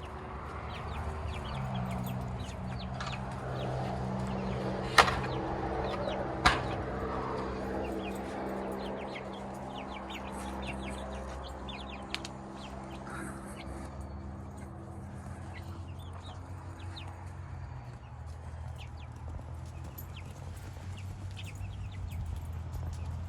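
Young chickens peeping and clucking over a steady low hum. Two sharp knocks, the loudest sounds, about five and six and a half seconds in, and a smaller click near the middle.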